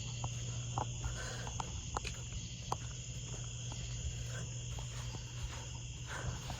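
Steady chirring of crickets over a low steady hum, with scattered faint clicks.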